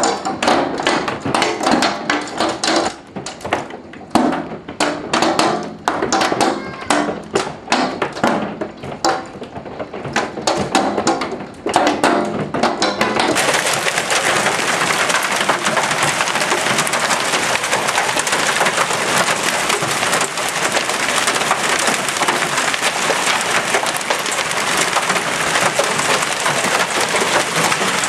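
Marble-size hailstones pelting down, striking hard surfaces in dense, irregular sharp knocks. About 13 seconds in, the sound changes abruptly to a steady, loud hiss of heavy hail pouring down.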